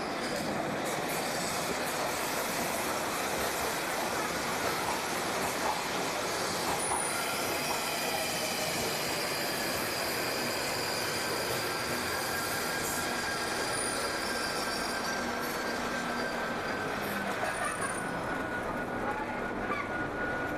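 London Underground Northern Line train (1995 Tube Stock) running into the platform and braking to a stop: a steady rumble with a high wheel squeal and whine from about seven seconds in, the whine dropping slightly in pitch as the train slows.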